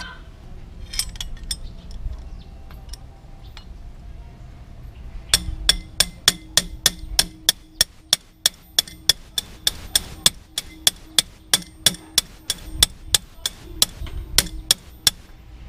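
Steady metal-on-metal tapping, about three light ringing strikes a second, as a steel rod is driven through the piston's pin bore to seat the piston pin in a small motorcycle engine. A few scattered taps come first; the steady tapping starts about five seconds in and stops shortly before the end.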